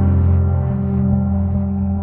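Ambient background music: a low, sustained chord held without a break.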